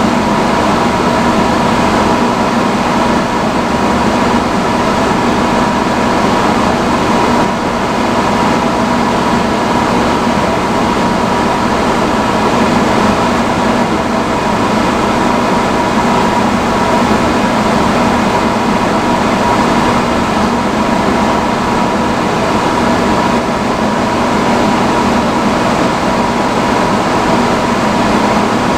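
Vintage salon hood hair dryer running on its highest setting: a loud, even rush of blown air with a steady hum running under it.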